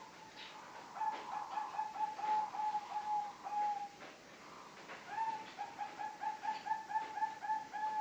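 Zebra dove (perkutut) cooing: two bouts of rapid, evenly pitched staccato notes, the first starting about a second in and the second about five seconds in, the second running into a longer held note at the end.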